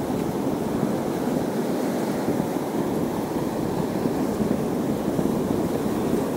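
Mediterranean sea surf: a steady wash of waves, with no single break standing out.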